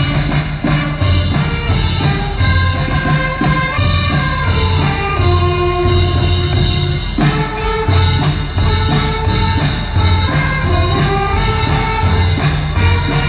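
Brass band playing a melody in held notes that step up and down, over a steady pulsing drum and bass beat.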